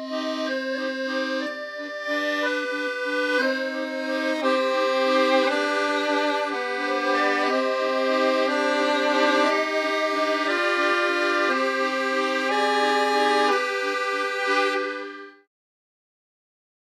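Instrumental background music: held chords that change every second or so, cutting off about a second and a half before the end.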